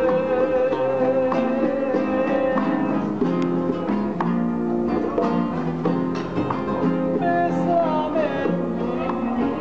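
Live trio of two acoustic guitars and bongos playing a song, with a man singing along.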